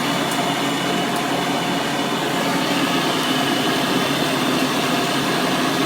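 Vintage Hoover Model 700 upright vacuum cleaner running steadily, its motor giving a constant hum with several steady tones and an even rush of air.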